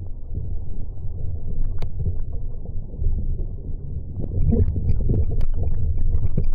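Wind and water noise on a camera mounted on a Sunfish sailboat moving through choppy water in gusty wind: a steady low rumble, with scattered small ticks and two sharp clicks.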